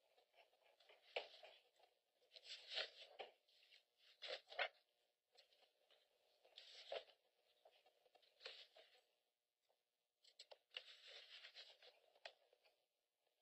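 Faint, irregular rustling of papers being handled, with a few soft knocks, over a low steady hum.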